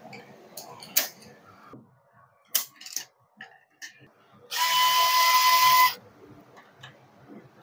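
A loud blast of air, about a second and a half long, from a handheld air blower aimed into the printer's paper-feed sensor area, hissing with a steady whistle. Before it come a few sharp clicks and knocks of parts being handled.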